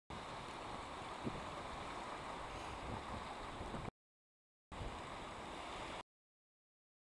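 Steady rushing of wind on the microphone and small waves washing in at the shoreline. The sound cuts out completely about four seconds in for under a second, and again about a second before the end.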